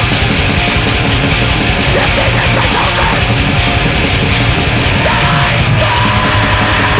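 Loud death/thrash metal recording, with distorted electric guitars and drums playing dense and continuous.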